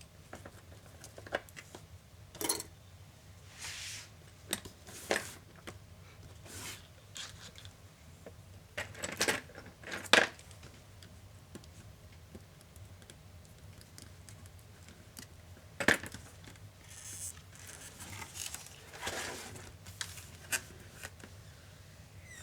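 Laptop parts being handled and taken apart by hand: scattered sharp clicks and taps of small plastic and metal pieces, with a few short scrapes and rustles, over a faint steady low hum.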